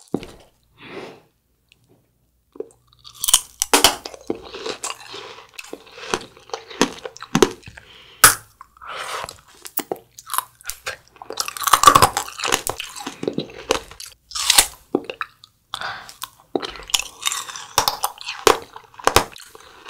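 A person biting and chewing fresh watermelon: irregular crisp, wet crunches in clusters, with a short pause near the start.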